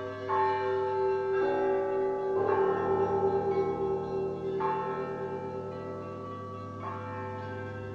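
Orthodox church bells ringing: bells of different pitch are struck one after another every second or two, each note ringing on and overlapping the next over a deep, steady low tone.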